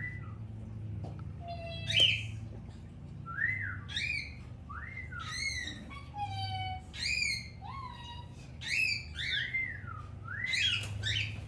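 Cockatiel whistling a string of short chirps, each rising and then falling in pitch, about a dozen in all, the loudest about two seconds in.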